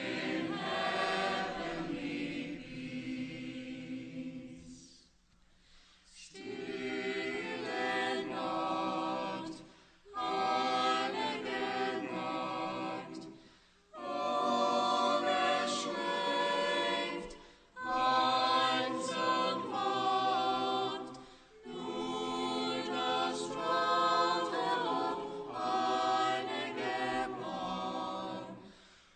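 A choir singing, phrase after phrase of about four seconds with brief pauses between.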